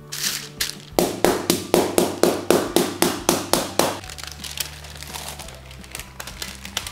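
Meat mallet pounding a beef fillet through baking paper on a wooden cutting board, a rapid run of about a dozen blows at about four a second that stops about four seconds in. The blows flatten the fillet by breaking its fibres. Lighter handling sounds follow.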